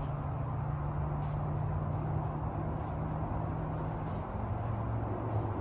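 A steady low engine drone, dropping slightly in pitch about four seconds in.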